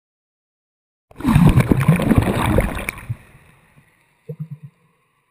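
Seawater surging over a camera held at the surface: a sudden rush of splashing and gurgling about a second in that dies away over the next two seconds, then a short pulsing gurgle near the end.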